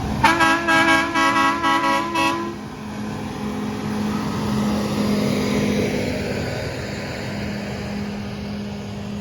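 Horn on a passing railroad maintenance machine sounding a rapid string of about nine short toots over a held lower note for roughly two seconds. After that, a steady engine hum and rolling noise as the equipment goes by.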